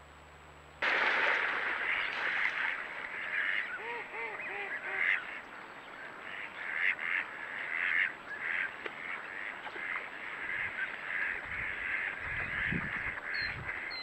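A dense, continuous chorus of many animal calls, starting abruptly about a second in, with a short run of four lower, arching calls around four seconds in.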